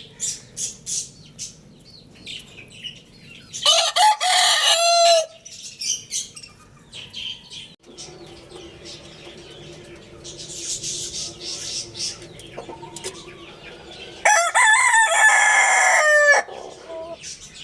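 Rooster crowing twice, once about four seconds in and again near the end, each a loud crow of under two seconds. Short chirps and clucks from chickens fill the gaps between the crows.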